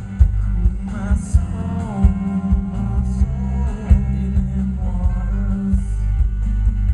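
Live band music with a singer, heard loud and bass-heavy, with a steady drum beat thumping underneath.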